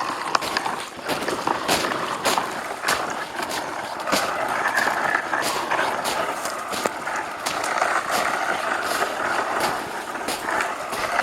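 Footsteps crunching in snow, a bit under two a second, while a dry dead sapling is dragged behind, its twigs and trunk scraping and rustling through the snow.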